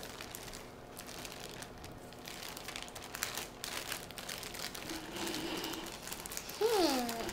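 Thin plastic bag crinkling as it is handled, a rapid run of small crackles. Near the end a short voice sound with falling pitch is the loudest moment.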